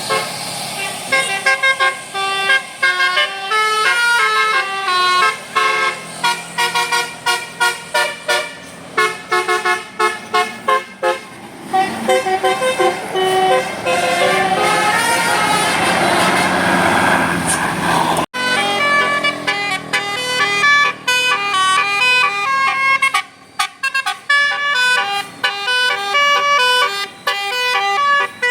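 Indonesian bus 'telolet' musical horn, a multi-tone air horn, playing a fast tune of quick stepped notes in the 'Basuri' style. About two-thirds of the way through the sound cuts off abruptly and another horn melody starts.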